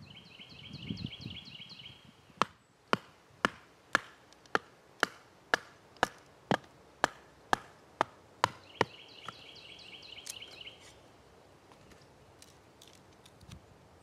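Splitting kindling by batoning: a wooden baton strikes the spine of a blade driven into a stick of wood. It gives about a dozen sharp knocks at a steady two a second, stopping about nine seconds in.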